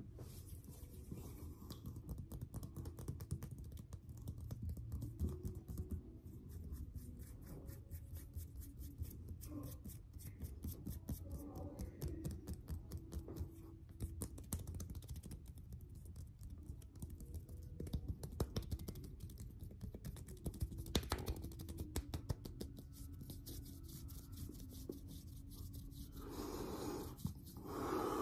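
Close-miked ASMR hand sounds: fingers, skin and palms rubbing and moving against each other, making a dense run of small crispy clicks and crackles over a low steady background rumble. There is a louder, softer rubbing swell near the end.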